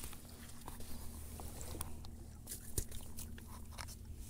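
Scattered small clicks, crunches and scrapes of hand handling as fishing pliers are brought out and worked at the hook in a fish's mouth, with one sharper click a little under three seconds in.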